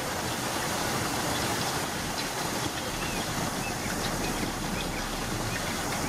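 Steady rush of flowing stream water, with a few faint short high chirps about halfway through.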